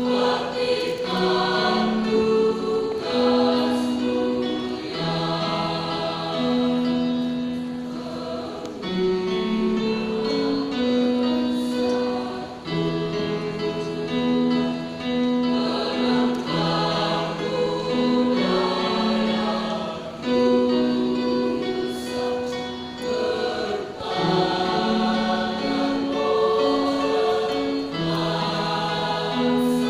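A student choir singing in several-part harmony, voices holding long notes that change together every second or two.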